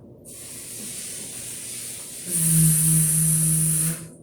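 A finger drawn through sand, a soft hiss. About two seconds in, a woman holds a buzzing 'vvvv' for under two seconds: the sound of the letter V.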